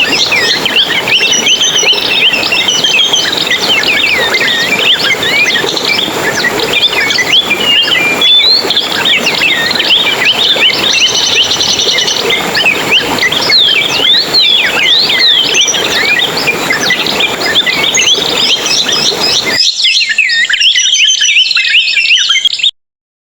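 A dense chorus of many small songbirds chirping and twittering at once, with quick rising and falling notes overlapping throughout. The background hiss drops away shortly before the end, and the birdsong then cuts off suddenly.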